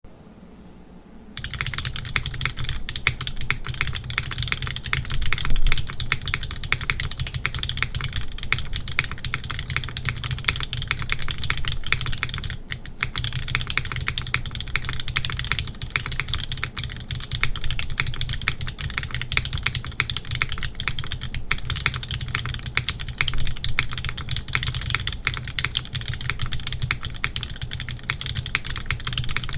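Typing on a QK80 mechanical keyboard with lubed, filmed Gateron X linear switches, a red aluminium plate and GMK Deepwell keycaps: a fast, steady run of keystrokes. The typing starts about a second and a half in and pauses briefly near the middle.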